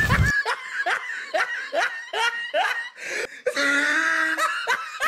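Laughter: a run of short, repeated bursts, about two to three a second, with a longer held stretch a little past the middle.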